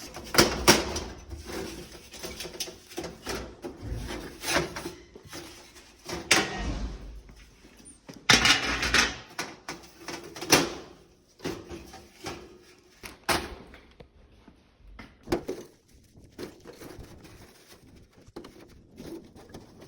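Oven door parts being worked by hand while the door seal is unscrewed and freed: irregular clicks, knocks and short scrapes, with a few dull thuds.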